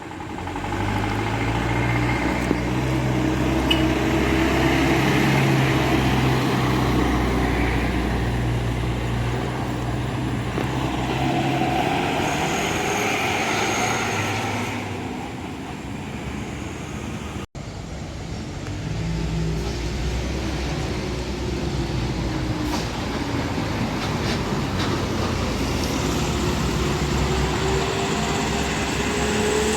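Heavy diesel road traffic, buses and trucks, passing close by with a steady engine drone. The sound breaks off abruptly about two-thirds of the way through. Near the end an engine's pitch rises steadily as it picks up speed.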